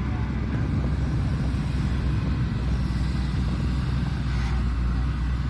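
Diesel engine of a Shantui ME210LC-1 crawler excavator running steadily under working load.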